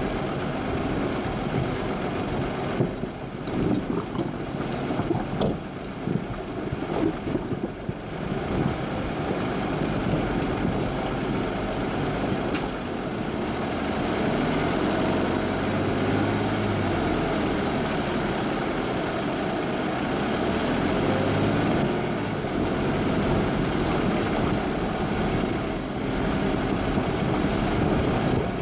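Jeep driving: the engine runs steadily under a constant rush of road noise, with irregular knocks and rattles for several seconds near the start.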